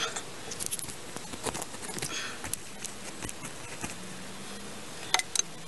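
Scattered small clicks and rustles of handling in a sandy crawlspace, ending in a few sharp clicks as the bottle jack's metal handle is taken up to work the release valve.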